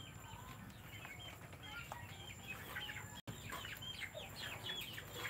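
Native chickens calling faintly: a run of short, high, falling peeping chirps, coming thicker in the second half.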